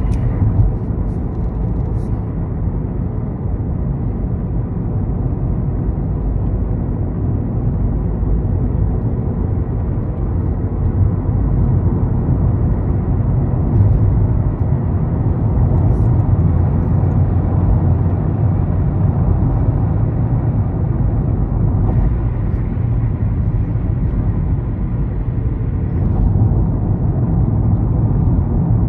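A car driving on a highway, heard from inside the cabin: a steady low rumble of road, engine and wind noise with no change in pitch.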